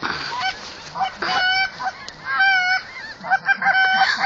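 A flock of geese honking: many short, overlapping honks at several pitches, calling in quick succession.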